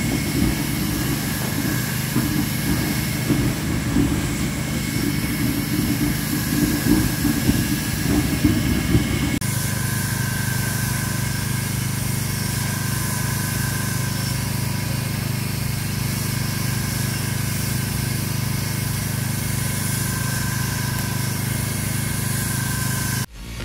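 Steady machine running noise from screed floor work. After an abrupt change about nine seconds in, it is a hand-held electric power float, its motor spinning the steel finishing disc over fresh sand-cement screed with a steady hum and whine. Music starts right at the end.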